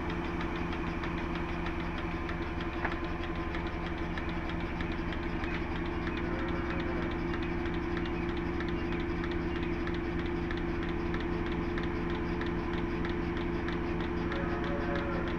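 A motor-driven machine running steadily: a constant hum with a fast, even beat.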